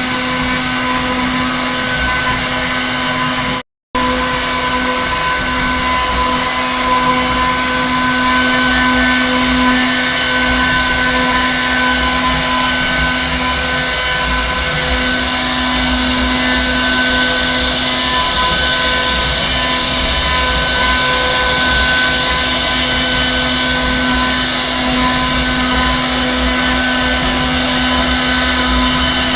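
CNC router spindle carving a wooden door panel, a steady motor whine over cutting noise. The sound drops out completely for a moment about four seconds in.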